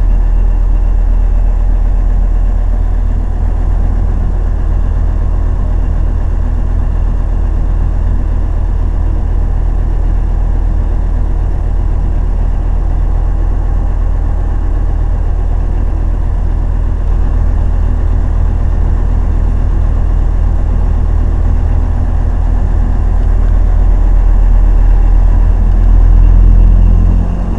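A cruise boat's engine running steadily, a loud low drone heard from inside the passenger cabin. It swells a little near the end, then eases off.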